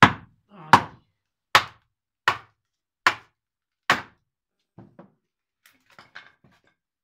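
A wooden mallet hammering six times, about three-quarters of a second apart, to split a shingle blank off a wooden billet. A few lighter knocks and small cracks follow as the wood parts.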